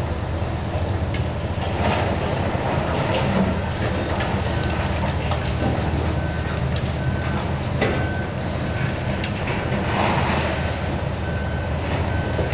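Heavy diesel demolition excavators running steadily, with scattered knocks and crunches from concrete being broken. From about four seconds in, a machine's reversing alarm beeps about once a second.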